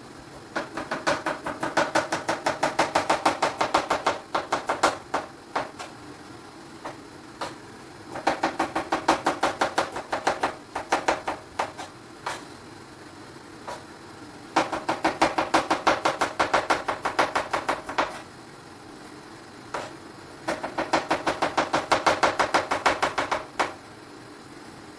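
Kitchen knife chopping okra on a cutting board, with quick strokes about five or six a second. The strokes come in four runs of a few seconds each, with short pauses between them.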